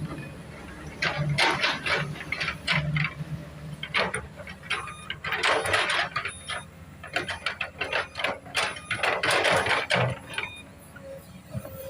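Komatsu PC200 excavator at work: its diesel engine runs underneath irregular clacks and several longer scraping bursts, the loudest about halfway through and again near the end.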